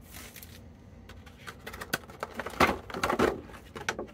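Packaging being handled as items are taken out of a collection box: a run of short rustles and clicks, loudest about three seconds in.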